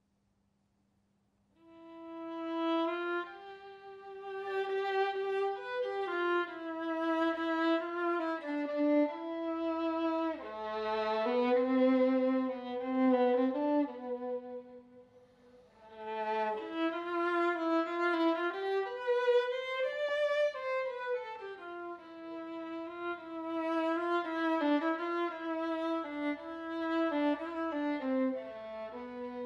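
Solo violin playing a melody of held, bowed notes, starting after about a second and a half of near silence. The playing eases off briefly about halfway through, then the next phrase begins.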